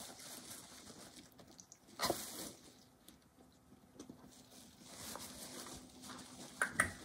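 Soft scuffling and rustling as a pet rat walks on a small fabric-covered barrel that rolls on carpet and a hand moves the barrel. A louder rustle comes about two seconds in, and a couple of light taps near the end.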